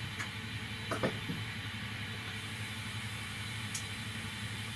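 Steady low hiss with a faint hum underneath, the quiet background noise of a small room, with a faint tick about a second in.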